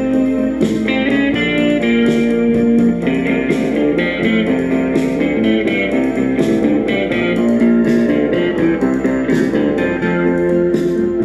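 Karaoke backing track playing an instrumental break with no vocal: a band arrangement of held notes over a steady drum beat.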